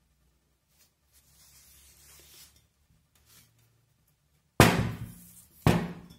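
Two loud thumps about a second apart, each trailing off over half a second, from a large paper-covered glass demijohn being handled and shifted on the tabletop. Faint cloth-like rubbing comes before them.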